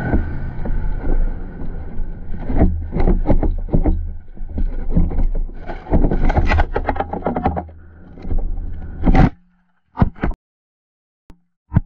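Two-stroke dirt bike's engine running under helmet-camera wind noise, breaking into a run of sharp knocks, scrapes and clatters as the bike goes over a rocky quarry edge and crashes. The sound cuts off abruptly about nine seconds in, leaving only a few short knocks.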